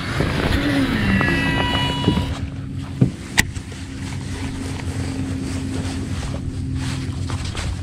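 Bow-mounted electric trolling motor humming steadily, its pitch dropping in the first second or so, with water noise around the hull and two sharp clicks about three seconds in.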